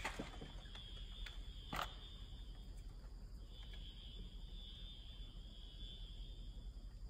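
A steady, high-pitched trilling chorus of night creatures, breaking off for a moment about three seconds in. A single sharp knock sounds just under two seconds in.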